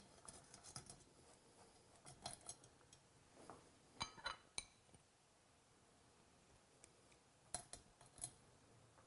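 Faint, scattered clinks and taps of a metal utensil against cookware and dishes as steamed vegetables are served out, in a few short clusters, the loudest about four seconds in.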